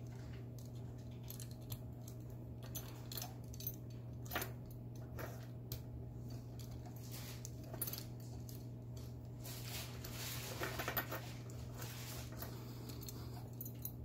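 Lock pick and tension tool clicking and scraping inside an old Adlake railroad lever padlock as the levers are worked, with a longer run of rattling scrapes a little past the middle. A steady low hum sits underneath.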